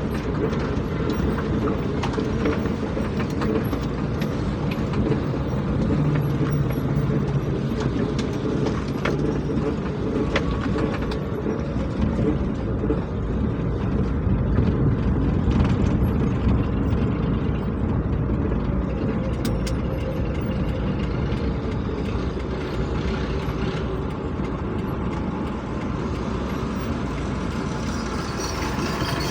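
Steady rumble of heavy vehicle engines running, with scattered faint clicks and knocks.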